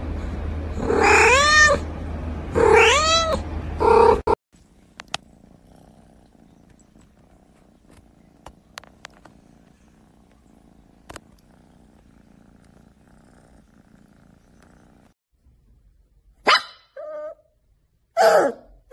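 A cat meowing loudly, two long meows that rise and fall in pitch, then a short third one. Then it goes quiet apart from a few faint clicks, and near the end a puppy gives several short high whimpers.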